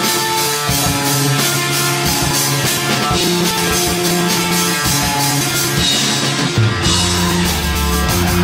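Live hardcore punk band playing loud: drum kit pounding out a fast, steady beat under guitar, with a heavier low end coming in about two-thirds of the way through.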